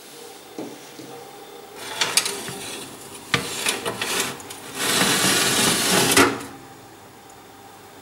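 Metal baking tray clattering as it is picked up and handled, then slid along the oven's shelf runners with a scraping rasp of about a second and a half that ends in a knock.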